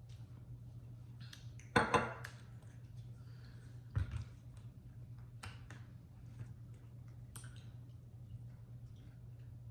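Close-up eating and food-handling sounds: a loud crunch or crinkle about two seconds in, a knock on the table or container around four seconds, and scattered small clicks and clinks. A steady low hum runs underneath.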